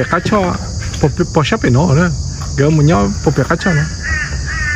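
Crows cawing repeatedly, with a steady high insect drone underneath.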